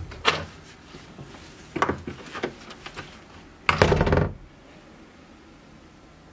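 Knocks and thuds on a wooden door: a couple at the start, a quicker run of knocks about two seconds in, and a heavier burst of knocking near four seconds.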